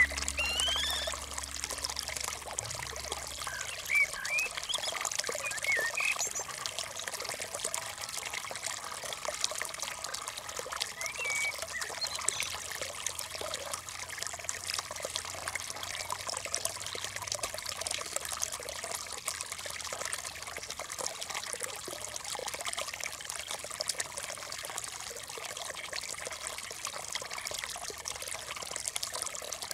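Water trickling and pouring steadily, with a few short rising chirps in the first few seconds and a low hum fading out over the same stretch.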